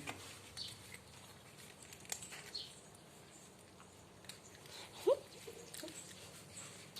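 Small animals feeding: soft scattered clicks and pattering, a few brief high chirps, and one short rising call about five seconds in, the loudest sound.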